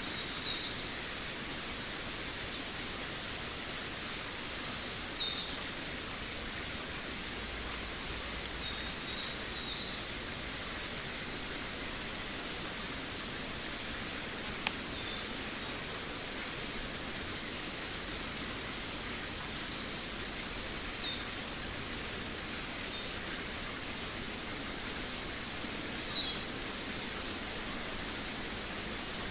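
Forest ambience: small birds giving short, high, twittering chirps, some falling in pitch, every few seconds over a steady background hiss.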